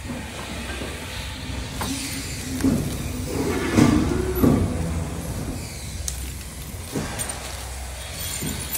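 Small metal window-handle and lock parts clicking and a plastic parts bag crinkling as they are handled, over a steady low background rumble. A louder wavering sound rises about four seconds in.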